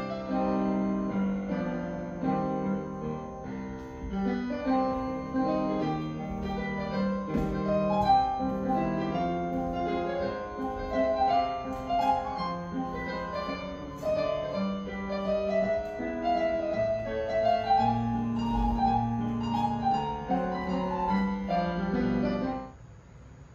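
Solo piano music playing a ballet class accompaniment for barre work, a string of steady notes that stops about a second before the end.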